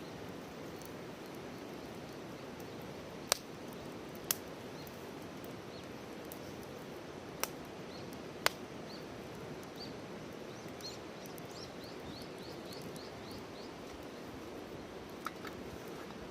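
Wood fire burning in a bucket fire stand, with several sharp pops of the burning wood: four in the first half and one near the end. Under it runs a steady rushing hiss. In the middle a bird sings a quick series of short high notes.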